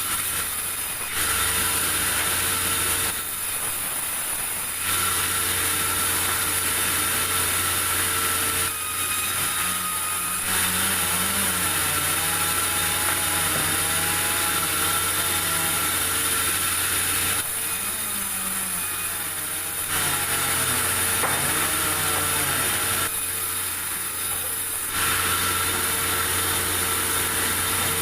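Sawmill saw running and cutting a durian log, a steady loud machine drone with a hiss of sawing that grows louder for stretches of a few seconds, several times over.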